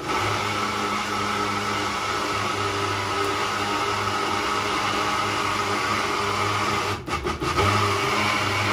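Small electric mixer-grinder running steadily as it grinds ingredients for tomato achar, its motor held on by pressing down the cap. About seven seconds in it cuts out in a few quick stutters, then runs on.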